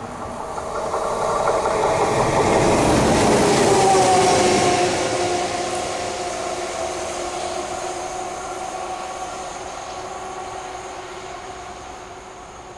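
Two coupled SNCF electric locomotives running light past on the main line. The hum of motors and wheels on rail swells to its loudest about four seconds in, then fades steadily as they draw away, its tones dropping slightly in pitch, with a thin high whine lingering.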